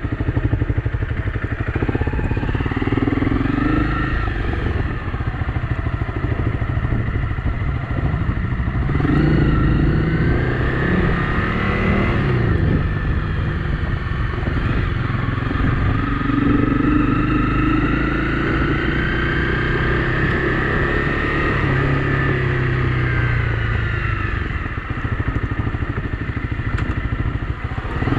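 Honda CRF250 Rally's single-cylinder four-stroke engine riding under way. Its pitch climbs and drops several times as the bike accelerates, changes gear and slows.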